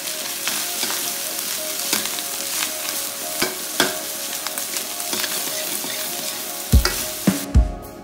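Fried rice sizzling in a hot wok while a metal wok ladle stirs and scrapes it, with frequent sharp clinks of the ladle against the wok. The sizzling stops near the end, and a few heavy low thumps follow.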